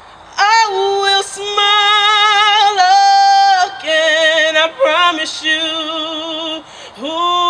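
A woman singing a gospel song solo into a microphone: wordless melismatic runs and long held notes with wide vibrato, and no instruments heard. Near the end there is a short break, then she slides up into the next note.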